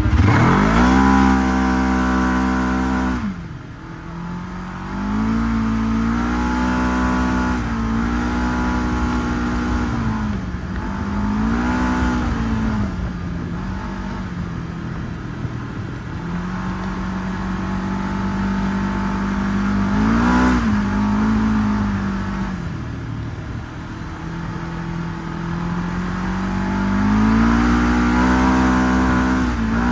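Segway 1000 UTV engine driving under varying throttle, revving up and easing off again and again. It climbs steeply right at the start, drops off sharply about three seconds in, then surges repeatedly, most strongly near the middle and toward the end.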